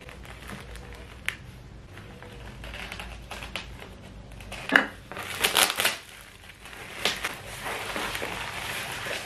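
Black plastic bubble-wrap mailer crinkling and rustling as it is opened by hand, with one loud sharp crackle about halfway through and a cluster of louder crackles just after it. Near the end the wrap rustles steadily as the cardboard box inside is pulled free.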